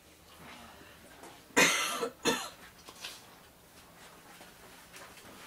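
A person coughing: a longer cough followed by a short second one, about a second and a half in.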